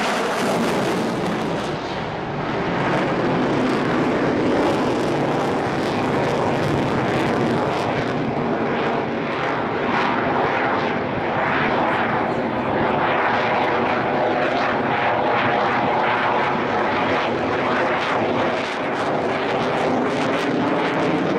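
Chengdu J-10 fighter's single AL-31FN turbofan engine, a loud, continuous jet noise with a faint whine in it as the jet manoeuvres overhead, swelling and easing slightly as it turns.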